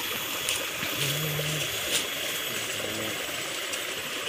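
Steady rushing of a stream of flowing water.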